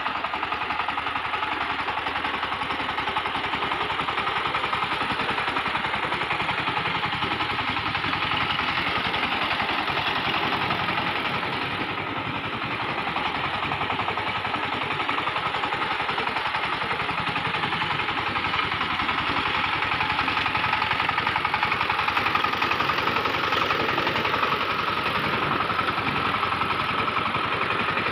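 SIFANG 20-horsepower single-cylinder diesel power tiller engine running steadily under load as it drags its tiller through a flooded paddy, puddling the mud, with a brief dip in level about twelve seconds in.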